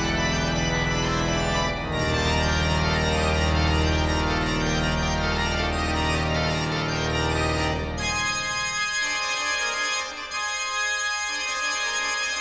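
Organ toccata music: full sustained chords over deep held bass notes. About two-thirds of the way through the bass drops away, leaving lighter upper chords with a short repeating figure.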